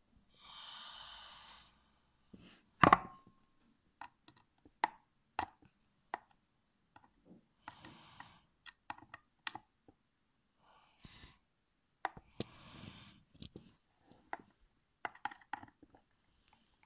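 Precision Torx screwdriver working a stripped hard-drive screw whose head has been built up with solder: a series of irregular sharp metal clicks and short scrapes, the loudest knock about three seconds in.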